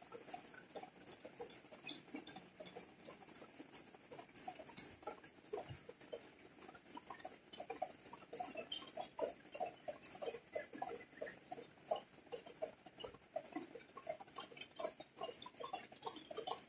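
Rainwater dripping and pattering on leaves: a rapid, irregular run of light taps, with a few sharper ticks about four to five seconds in.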